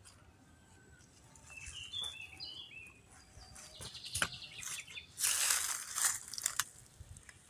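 Small birds chirping several times, followed by a loud rustling, scraping noise that peaks about five to six and a half seconds in.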